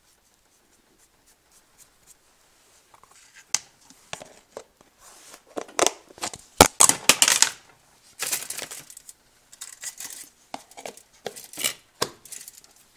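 Pepper mill being twisted to grind black pepper: irregular rasping, crunchy bursts in clusters, loudest about halfway through, with a little clatter of handling.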